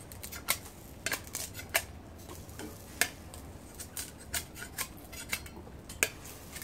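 A kitchen knife scraping and chipping the hard rind off a sugar cane stalk: a string of sharp, uneven clicks and scrapes, about ten in all.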